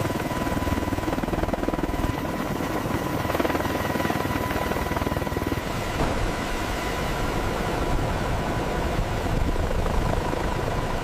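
Heavy helicopter running, its rotor beating rapidly over a dense rush of engine noise, with a steady high whine above it.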